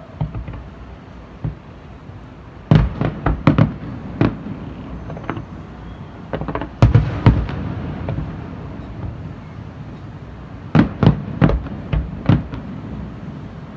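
Aerial firework shells bursting with sharp bangs. The bangs come in three quick volleys, a few seconds apart, over a steady background hum.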